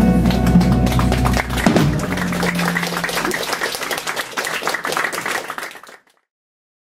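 A drums, bass and electric guitar trio ending a piece: the full band sound and bass drop away about a second and a half in, and a last low note rings for a second or so. Scattered clapping follows, and everything fades out about six seconds in.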